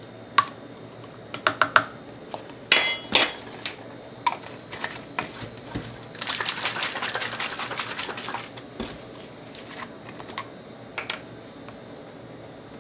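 A metal spoon clinks and taps against containers as baking soda is spooned in. There are scattered clicks, two louder ringing clinks about three seconds in, and a couple of seconds of rapid rattling clicks about halfway through.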